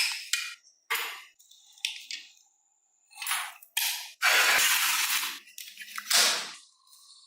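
Hand work on a diecast model car: a few sharp clicks and clinks of small parts, then a rasping stroke about a second long about four seconds in and a shorter one near six seconds.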